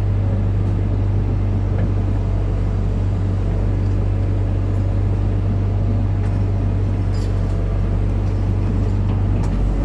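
Hitachi excavator's diesel engine running at a steady speed: a constant low drone that does not change in pitch or loudness.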